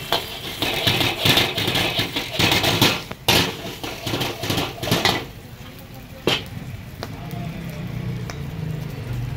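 Egg frying in hot oil in a large metal wok, sizzling, with a metal ladle scraping and clanking against the wok. About five seconds in the sizzle and scraping die down, followed by one sharp clank and a steady low hum.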